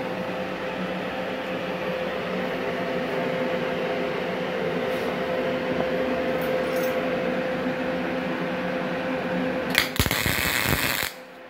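MIG 350 NGKR inverter welding machine running with a steady hum. Near the end a click is followed by about a second of loud MIG arc noise from the torch striking on steel plate. The arc runs without shielding gas, which leaves the weld porous.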